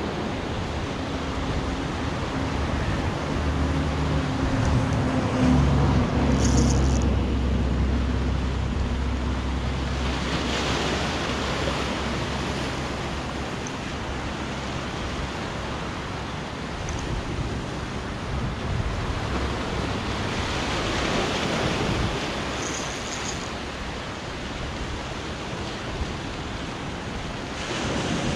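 Sea waves washing against the shore, with wind on the microphone; the surf swells up twice, about ten and twenty-one seconds in. A low steady hum sits under it for roughly the first ten seconds.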